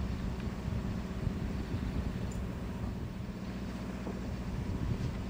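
Steady low rumble of wind buffeting the microphone aboard a sailing yacht under way in a fresh breeze, with the sea rushing past the hull.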